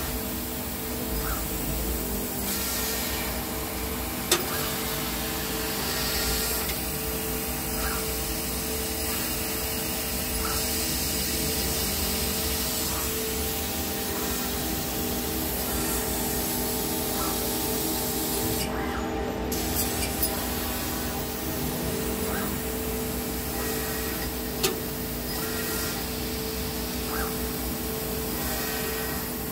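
Fiber laser cutter cutting a metal sheet: a steady hiss of assist gas and cutting over a steady machine hum, with a few sharp clicks, the loudest about four seconds in and another near the end.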